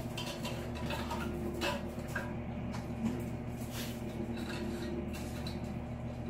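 A few light knocks and scrapes of a utensil against a mixing bowl while thick cheesecake filling is poured out, over a steady low hum.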